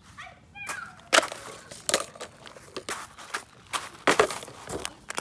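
Footsteps crunching on loose gravel, a sharp crunch about every half second to a second.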